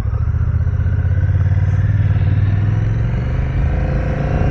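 2022 Honda Rebel 1100's parallel-twin engine running under load as the bike pulls away and gathers speed. Its pitch rises, most clearly in the last second.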